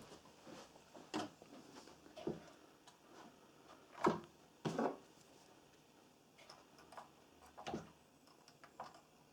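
Scattered clicks and light knocks of parts being handled while refitting a small engine's metal fuel tank and fuel filter, a few sharp taps spaced unevenly, the loudest about four seconds in.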